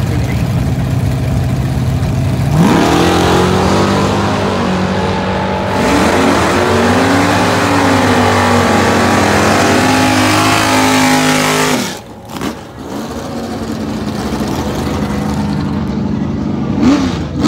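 Two V8 drag cars, one of them a 1966 Chevelle Malibu with a ProCharger-supercharged big-block, launch from the starting line about two and a half seconds in and run at full throttle down the strip, the engine note rising and dipping as the revs climb. The sound drops away sharply about twelve seconds in.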